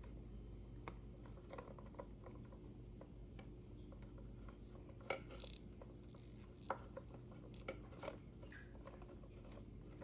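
Faint clicks and rubbing of insulated bullet connectors and wires being handled and pushed together while the motor's phase wires are joined, a few sharper clicks about five and seven seconds in, over a steady low hum.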